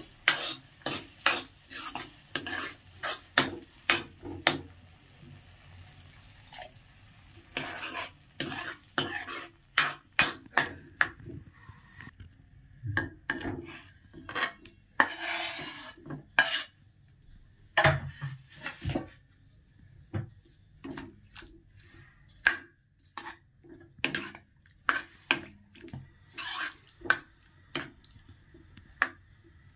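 A metal ladle and spatula stirring and scraping in a kadhai of thick pea-and-paneer curry, knocking against the pan in quick, irregular strokes, with a short pause about five seconds in.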